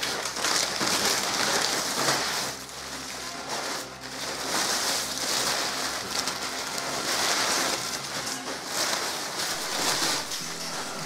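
Crumpled paper packing rustling and crinkling as hands rummage through it and pull wads of it out of a cardboard box, the rustle swelling and easing several times.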